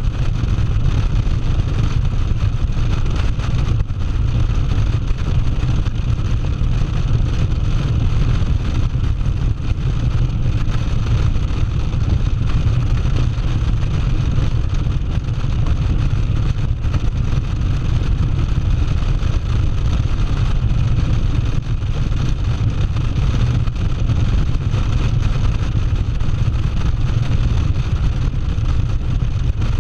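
Cruiser motorcycle running at steady highway speed, its engine drone mixed with heavy wind rushing over the microphone. The sound holds steady throughout.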